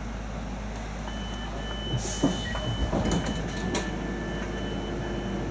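Train carriage door warning beeps, a string of short high beeps repeating for about four seconds, with a short air hiss and a few clunks of the door mechanism around the middle.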